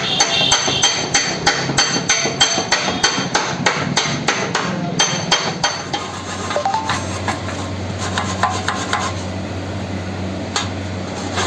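Hammer blows struck in quick succession, about four a second, thinning to a few irregular strikes after about six seconds, while a steady low hum comes in.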